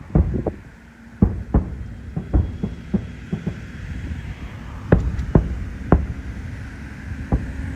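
Aerial fireworks shells bursting: a dozen or so irregular low booms and sharp cracks, some close together, over a low rumble.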